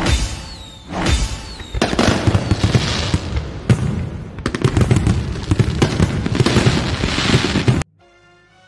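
Countdown-intro sound effects: heavy booming hits about once a second, then a dense run of fireworks bangs and crackling over music. It cuts off suddenly near the end, leaving faint, quiet music.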